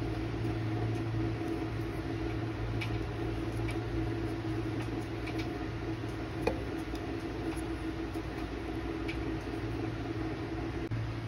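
Steady low background hum with a few faint, short ticks from a metal crochet hook working single crochet stitches in yarn.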